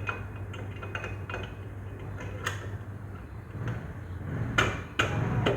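Metallic clinks and knocks, like tools or metal parts being handled: scattered light clicks, then a few sharper knocks in the last three seconds over a low rumble.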